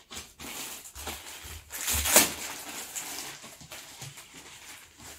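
Rustling and handling noises of clothing or its packaging as a garment is brought out, with a louder crackle about two seconds in.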